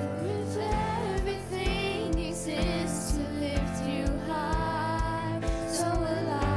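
Worship music: sustained chords under a wavering melody line, with a steady low beat of about two a second coming in just under a second in.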